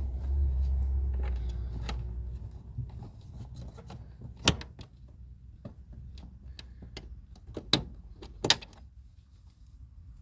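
Scattered plastic clicks and knocks from a car's front bumper cover being handled and fitted back onto the car, with three louder sharp knocks about four and a half, seven and a half and eight and a half seconds in. A low rumble fills the first two seconds.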